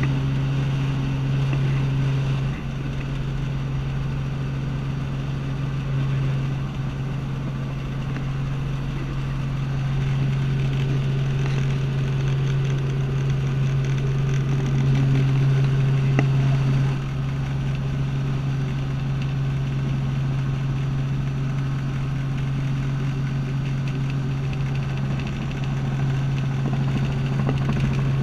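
Steady drone of a small helicopter in flight, its engine and rotor heard from inside the cabin, with a strong low hum.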